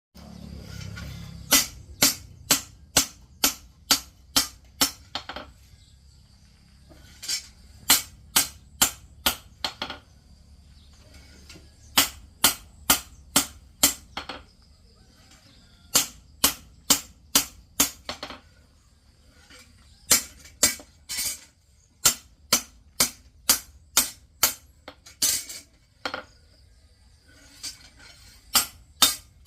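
Hammer striking metal on an anvil, about two ringing blows a second in runs of six to ten with short pauses between them, typical of forging a knife blade by hand.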